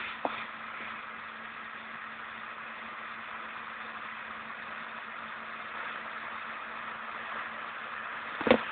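Distant SAME Silver 180 tractor engine running steadily under load while pulling a three-furrow plough, heard as an even hum. A single sharp knock near the end.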